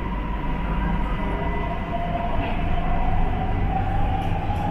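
Siemens Inspiro metro train running, heard from inside the car: a steady low rumble of wheels on the rails, with an electric traction-motor whine that slowly rises in pitch as the train picks up speed, over a steady higher hum.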